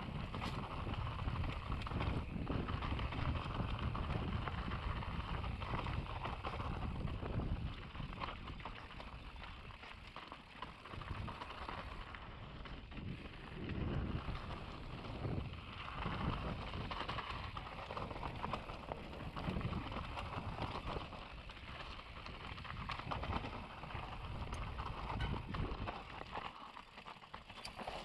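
Mountain bike descending a rocky trail: tyres rolling over stones with a constant clatter of small knocks and rattles, loudest for the first several seconds, then rising and falling.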